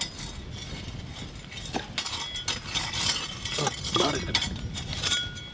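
Metal utensils and pots clinking and scraping, with irregular knocks throughout and a sharp clink at the start.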